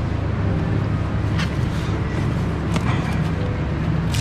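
Steady low hum of factory ambience, with a few short crinkling rustles of foam sleeves and plastic wrap being handled, about every second and a half.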